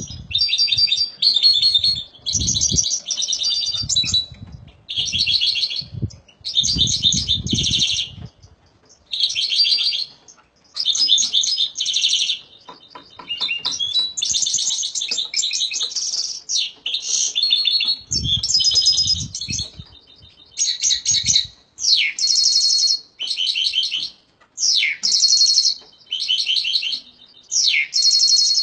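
A songbird singing: short, high, fast-trilled phrases about a second long, repeated again and again with brief pauses between them.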